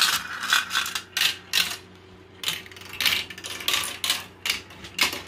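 Two marbles rolling and clattering down a plastic marble-run track, heard as an irregular run of clicks and rattles.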